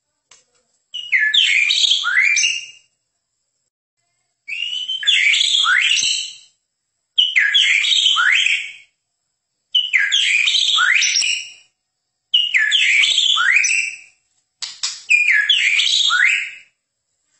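White-rumped shama (murai batu, Medan type) singing: six rich whistled phrases of quick notes sliding up and down, each lasting a second or two with short pauses between them.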